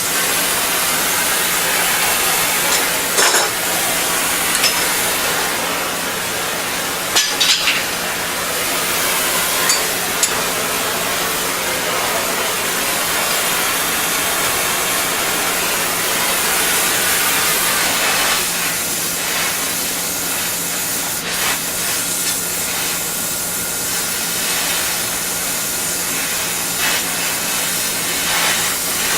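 Steady hiss of a room air conditioner running, with a few short clicks from hand work on metal clamps at scattered moments.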